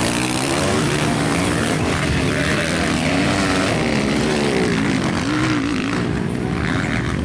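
Motocross dirt bike engines revving on a dirt track, the pitch rising and falling again and again as the riders open and close the throttle through corners and jumps.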